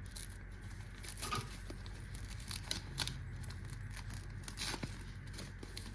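Paper gift packaging being handled and unwrapped: irregular crinkling and rustling with scattered small clicks and taps.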